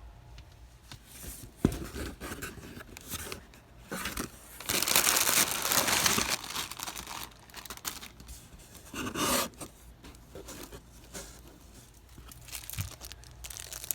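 Box being opened by hand: packaging tearing and crinkling, with a sharp click a couple of seconds in, a long loud rip about five seconds in and a shorter rip at about nine seconds.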